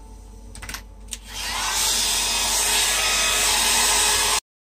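A few clicks, then a Conair hair dryer spins up and blows steadily over wet alcohol ink on the paper, cutting off suddenly near the end.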